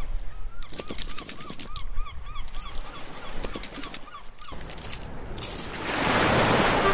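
Cartoon sound effects: a quick run of short squeaky honks, about four a second, with clicks. They are followed near the end by a rising rush of splashing water.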